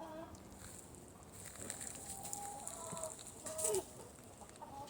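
Chickens clucking faintly in the background, a few short calls spread across the moment.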